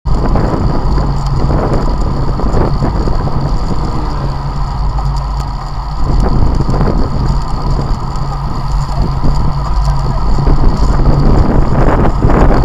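Wind buffeting the microphone of an action camera on a road bike moving at about 31 km/h, a loud and steady rushing that is heaviest in the low end. Road and tyre noise from the riding is mixed in.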